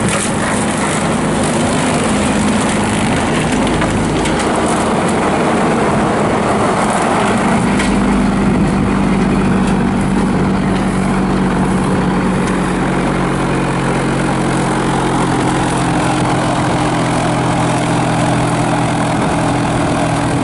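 Skid steer engine running steadily, driving a 72-inch brush cutter with a Star piston hydraulic motor. The engine note shifts about eight seconds in, then holds steady.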